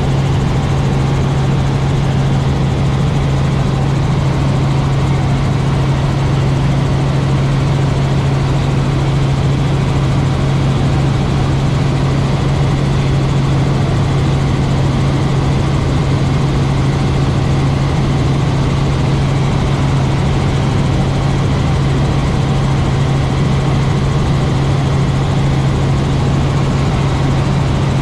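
Robinson R44 helicopter in flight, heard from inside the cabin: a steady, loud drone of rotors and engine with a strong low hum that holds constant throughout.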